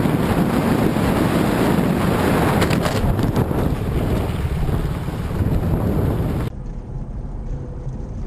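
Loud, steady wind and road rush on the microphone of a camera on a moving vehicle. It cuts off suddenly about six and a half seconds in, giving way to a quieter, steady low hum of a car cabin.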